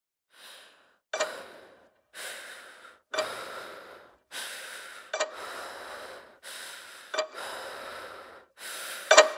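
A person breathing hard and fast in gasps, about one breath a second, with a sharp click falling exactly every two seconds, the last one loudest.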